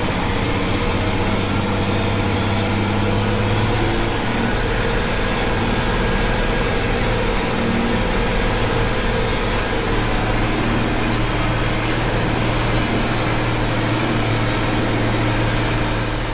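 Fertilizer spreader truck's engine running steadily, with an even low hum and no change in speed.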